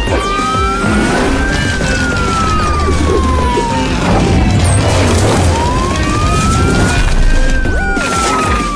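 Siren wailing in two slow cycles, each rising for about a second and a half and then falling for about three seconds, over background music with a steady low beat.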